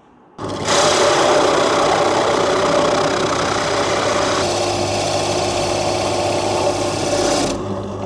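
Benchtop drill press running with an adjustable circle cutter, cutting a hole through the workpiece. The motor starts under a second in, the cutting noise thins about halfway, and the cutting stops near the end while the press keeps running.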